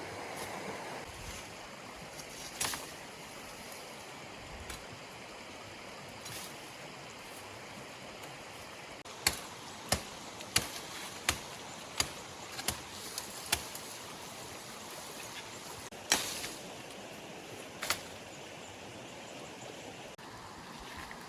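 Stream running steadily, with a run of about seven sharp knocks, roughly one every two-thirds of a second, a little before halfway through, and a few single knocks before and after.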